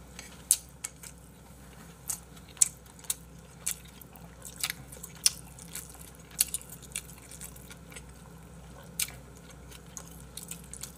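Eating sounds: chewing and mouth smacks mixed with irregular sharp clicks of chopsticks against bowls and the food container, a dozen or so spread unevenly, over a steady low room hum.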